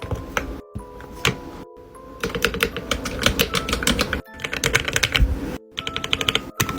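Rapid typing on a keyboard with fresh custom keycaps, a dense run of key clicks that speeds up about two seconds in, over background music. The sound drops out abruptly a couple of times.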